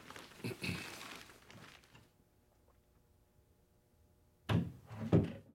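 Footsteps walking away across a room, then after a quiet pause two heavy thumps of a door being shut, near the end.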